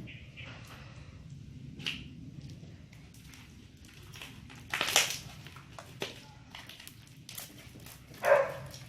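Homemade slime being squeezed and stretched by hand: soft squishing and small clicks, with a louder squelch about five seconds in and another near the end.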